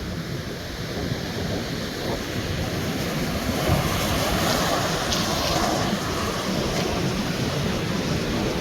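Sea waves breaking and washing on a beach, the surf building about three seconds in, with wind rumbling on the microphone.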